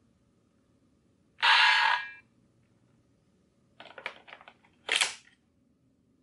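Bandai DX Two Sidriver plastic toy belt: a short electronic sound effect from its speaker, then a quick run of small plastic clicks and one sharper clack as its moving parts are handled.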